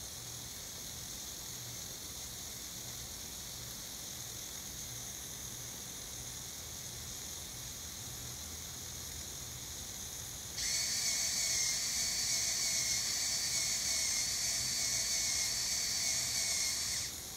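A PWM-driven hobby servo whines steadily for about six seconds, starting and stopping abruptly partway through, over a faint constant hiss.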